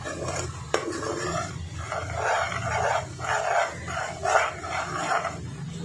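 Spatula scraping and stirring frying onion-and-spice masala around a pot, in repeated strokes, with a sharp knock on the pot about three-quarters of a second in.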